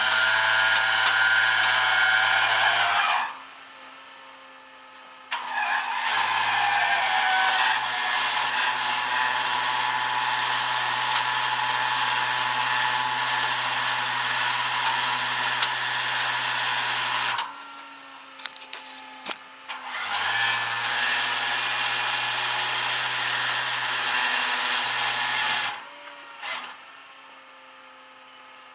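A motor-driven machine runs in three long stretches, about three, twelve and six seconds long, each starting and cutting off abruptly, with a steady low hum under a loud hiss.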